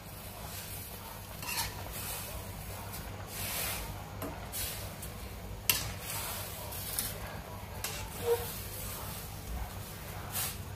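A spatula stirring a simmering mushroom curry in a stainless steel pot, with irregular scrapes and light clinks of the utensil against the pot.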